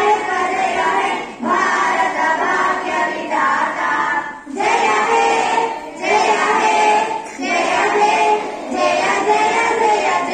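Group of schoolgirls singing together in unison into microphones, in sung phrases separated by short pauses about every one to two seconds.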